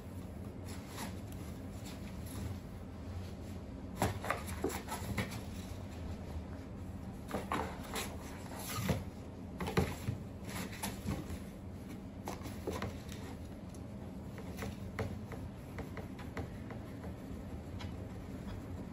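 A cat playing and rolling about in a cardboard box with a crumpled paper ball: scattered rustles and scrapes of claws and body on the cardboard, in flurries about four seconds in and again from eight to eleven seconds in, over a steady low hum.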